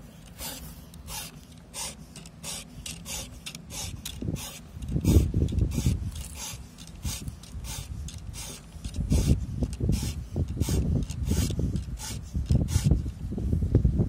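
Round chainsaw file rasping across the cutters of a Stihl saw chain, guided by a clamp-on file-guide jig, in quick evenly repeated strokes, about two to three a second: the chain is being sharpened. Low rumbling bumps come in now and then, loudest about five seconds in and again near the end.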